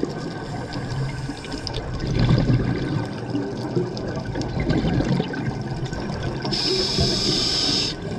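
Scuba breathing heard underwater: the burbling rush of exhaled regulator bubbles, with a steady high hiss for about a second and a half near the end, typical of a breath drawn through a regulator.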